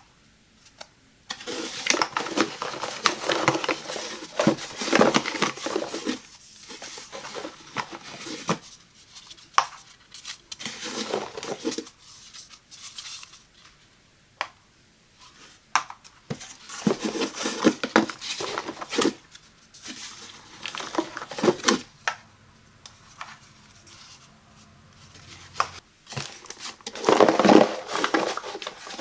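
Plastic single-serve coffee pods clicking and clattering as they are handled and set down one by one on a hard tabletop, in irregular clusters with short quiet gaps. Near the end comes a louder rattle of pods jostling inside a cardboard box.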